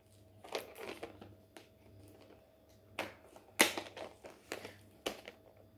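Plastic diamond-painting storage box being handled and fiddled with to find how it opens: scattered plastic clicks and knocks, the loudest a little after halfway.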